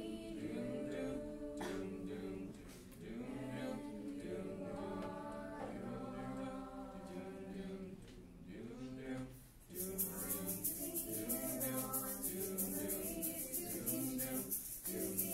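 A mixed group of teenage voices singing a cappella in harmony. About two-thirds of the way through, a fast, even, shaker-like hiss of about five strokes a second joins the singing.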